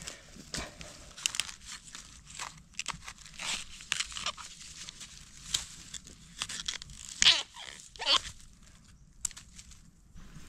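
Young wild ruak bamboo shoots being snapped off and torn by hand, a run of short cracks and tearing with dry bamboo litter crackling; the two loudest snaps come about two-thirds of the way through.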